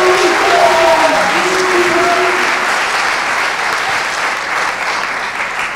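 An audience applauding in welcome, a dense steady clapping with a few voices calling out over it in the first couple of seconds, slowly tapering off toward the end.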